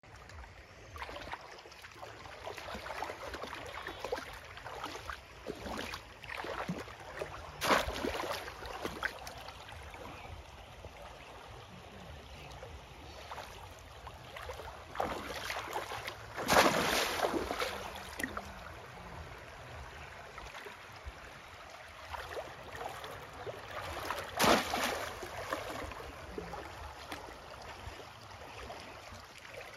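Shallow river water splashing and sloshing as a bamboo polo fish trap is plunged down into it while someone wades, with three louder splashes about 8, 17 and 25 seconds in.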